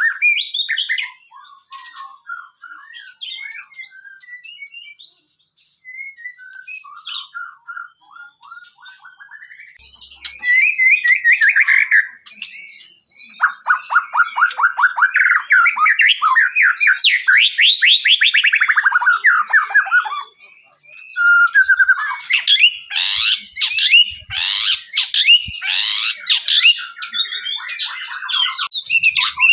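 White-rumped shama (murai batu) singing: varied whistled phrases, quiet at first, then from about ten seconds in loud, fast trills of repeated notes sweeping up and down.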